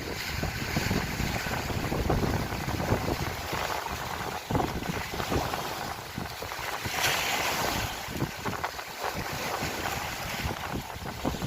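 Wind buffeting the microphone over small lake waves washing and lapping, with a louder rush of noise about seven seconds in.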